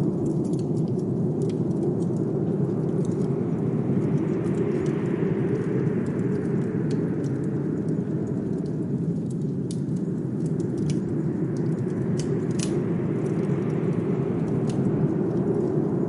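Blizzard wind blowing as a steady low rumble, swelling with a higher hiss about five seconds in, with scattered sharp crackles of a wood fire.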